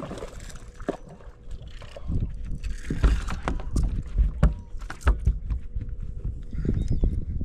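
A hooked bass thrashing as it is swung out of the water, then flopping with a series of irregular heavy thumps against the boat's deck.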